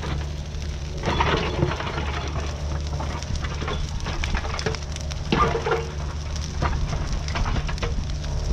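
Mini excavator's diesel engine running steadily under the irregular crackling and snapping of a burning brush pile, with louder cracks of wood about a second in and again near five seconds.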